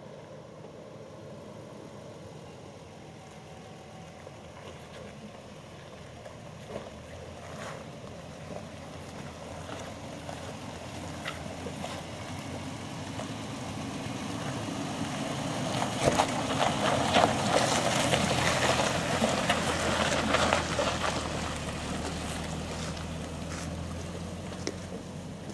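A four-wheel drive driving along a dirt and gravel track, its engine and tyres growing louder as it comes near, loudest about two-thirds of the way through with stones crunching and clicking under the tyres, then fading as it moves away.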